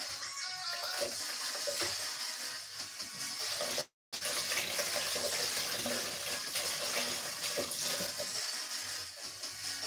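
A steady noise of water, with the sound cutting out completely for a moment about four seconds in.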